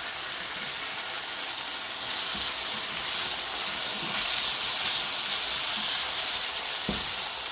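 Onions, carrots and potatoes frying in oil in a pan, sizzling steadily as they wilt, with a light knock near the end.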